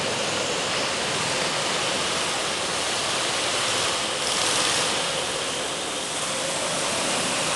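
Go-kart engines running on an indoor track, heard as a steady, echoing din through the hall, swelling slightly about halfway through.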